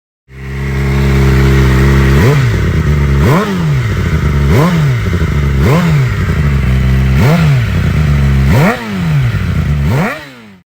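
Yamaha YZF sport bike's inline-four engine through a Remus aftermarket exhaust. It idles steadily for about two seconds, then is blipped about seven times in quick succession, each rev rising sharply and falling straight back to idle. The sound cuts off abruptly near the end.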